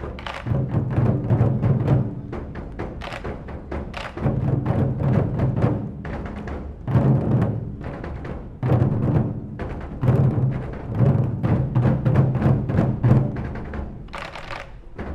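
A group of Japanese taiko drums beaten hard and fast, in loud driving phrases of a second or two separated by short lulls.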